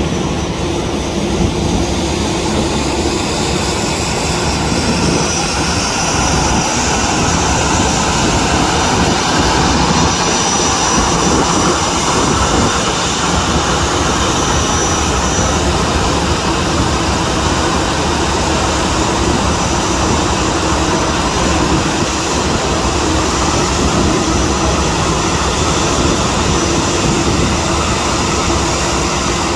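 Jet airliner engines running as the aircraft taxi, a steady loud rush with a thin high whine over it.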